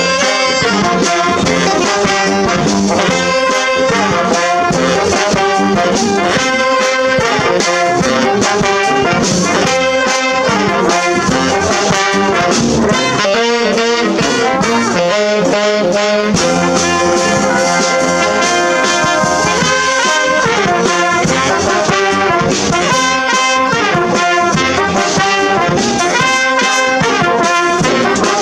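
A brass band strikes up right after a count-in and plays a tune, with horns over a steady rhythm.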